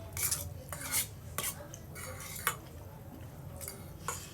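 Cutlery scraping and clinking against a plate while eating spaghetti: several short, irregular scrapes and clicks, the loudest about a second in and two and a half seconds in.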